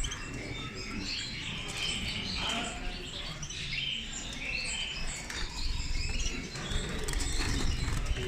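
Many small cage birds chirping and twittering at once, a dense overlapping chatter of short high calls, over a low background rumble.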